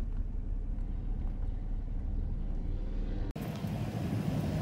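A car engine running steadily, heard from inside the cabin as a low drone. About three seconds in, the sound cuts to a louder, rumbling engine close by.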